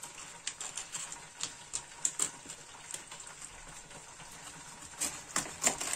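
Kitchen knife cutting air-dried herring on a glass cutting board: scattered light clicks and taps, coming more thickly about five seconds in.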